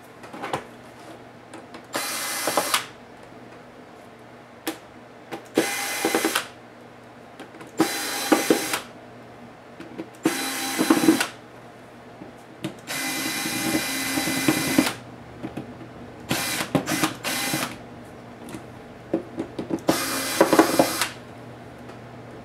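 Cordless electric screwdriver running in about seven short bursts, the longest about two seconds, backing out small screws from a laptop's screen assembly.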